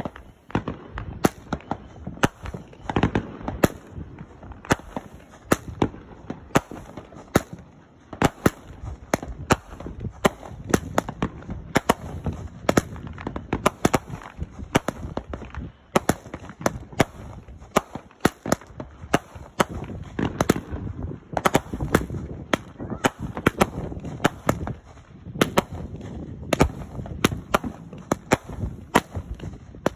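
Aerial fireworks going off in a rapid, irregular string of sharp bangs and crackles, several a second, over a continuous rumble.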